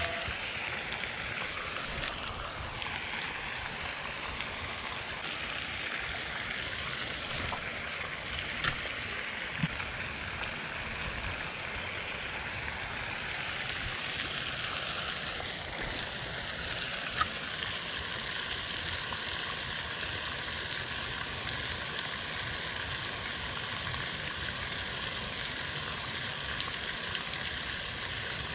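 Steady rush of water from a pond fountain splashing, with a few faint clicks scattered through it.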